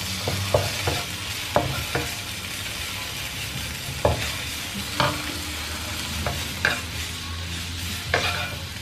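Slices of boiled beef sizzling in a little palm oil in a nonstick wok, being browned until slightly crisp. A steady frying hiss runs under irregular scrapes and taps of a wooden spatula against the pan as the slices are stirred and turned, about eight in all.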